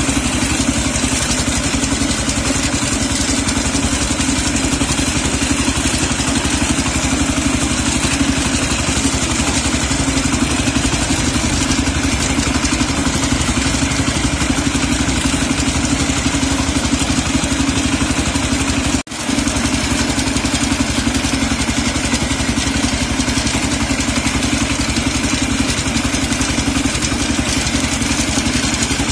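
Kentavr MB 1010DE-6 heavy walk-behind tractor's 10 hp single-cylinder diesel engine running steadily under way. The sound cuts out for an instant about two-thirds of the way through.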